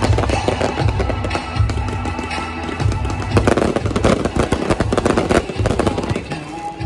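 Aerial fireworks going off in rapid strings of sharp cracks and bangs, thickest in the middle, over loud music with a heavy, regular bass beat.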